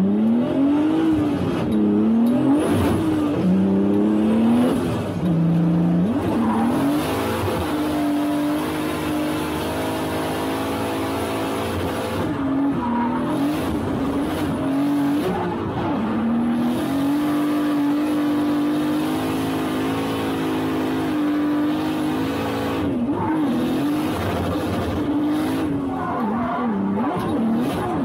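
Turbocharged BMW E30 drift car heard from inside the cockpit while drifting. The engine revs rise and fall sharply through the first several seconds, then hold high with brief dips, over tyres screeching.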